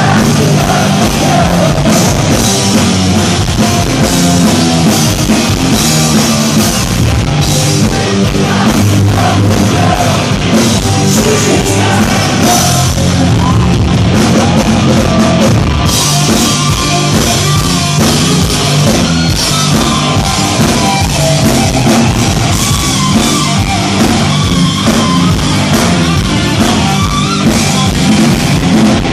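Live hard rock band playing loud, with drums, electric guitar and a male lead singer.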